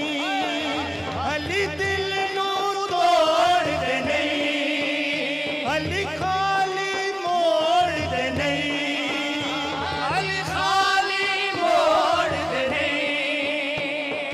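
Group of male reciters singing a Punjabi manqabat in praise of Ali into microphones, the melody carried in long, ornamented lines with wavering pitch over a low pulsing backing.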